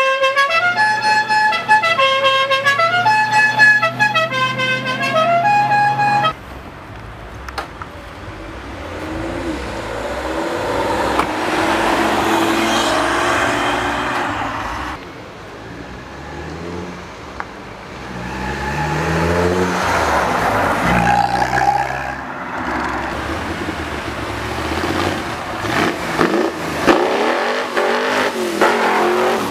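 A musical car horn plays a tune of changing notes for about six seconds and stops suddenly. Then cars pull away and drive past one after another, their engines rising in pitch as they accelerate.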